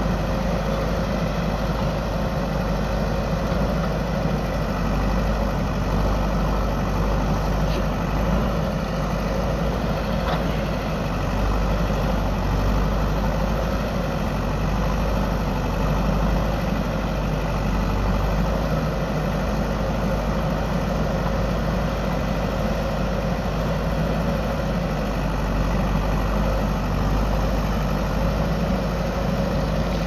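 JCB 3DX backhoe loader's diesel engine running steadily under load while its rear backhoe arm digs into the soil of a hillside cut. A couple of faint clicks come about a third of the way in.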